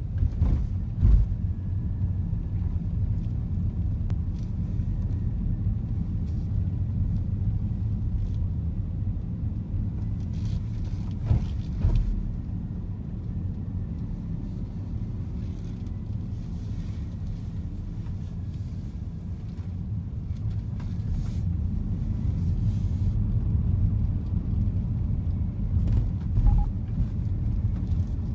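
Car driving, heard from inside the cabin: a steady low rumble of engine and road noise, with a few short knocks.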